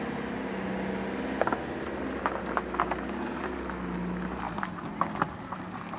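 A motor vehicle engine running steadily nearby, its low rumble dying away about four and a half seconds in, with several sharp clicks and knocks scattered over it.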